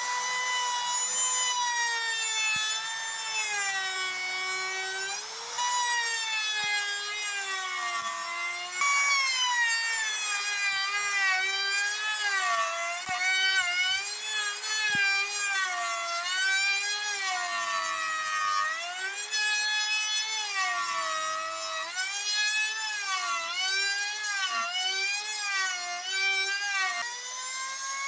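Electric drill motor running continuously, its whine dipping and rising in pitch every second or two as it comes under load cutting wood.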